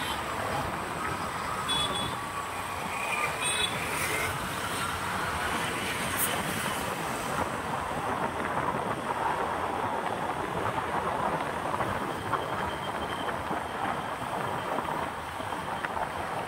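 Steady road traffic noise of passing vehicles, with a few short horn-like toots in the first four seconds.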